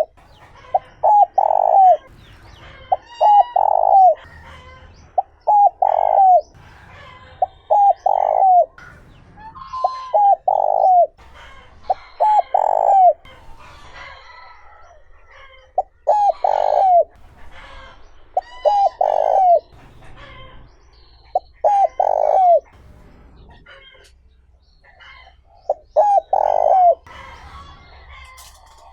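Spotted dove cooing, its phrase of short notes ending in a longer falling coo repeated about every two to three seconds, about ten times. Faint chirps of other small birds are heard between the phrases.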